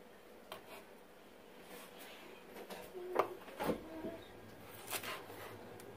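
Chef's knife cutting a small hot pepper on a plastic cutting board: scattered soft taps and clicks of the blade on the board, with one duller knock about three and a half seconds in.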